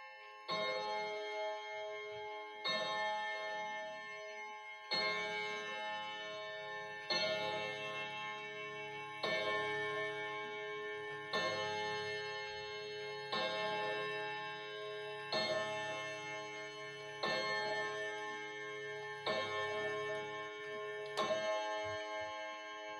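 Three-weight mechanical wall clock striking twelve o'clock: eleven strokes of the same ringing tone about two seconds apart, each one ringing on into the next, with the movement ticking underneath.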